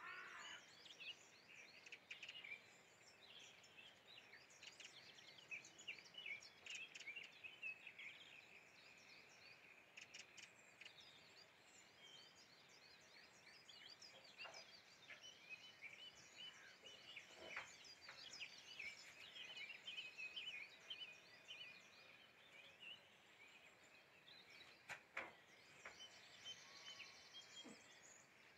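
Faint birdsong: several small birds chirping and trilling continuously, with a couple of soft clicks.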